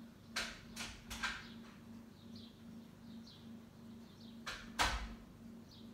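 Short handling noises, three in the first second and a half and two more about four and a half seconds in. Faint high bird chirps sound in between.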